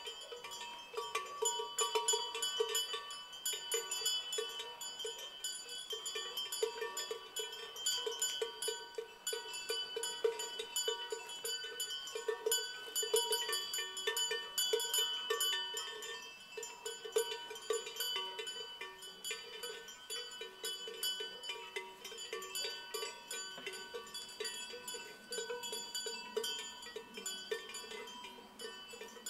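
Many cowbells worn by animals clanking irregularly and without pause, several bells of different pitch ringing over one another.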